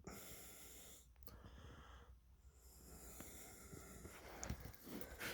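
Near silence: room tone, with faint rustles and soft ticks toward the end.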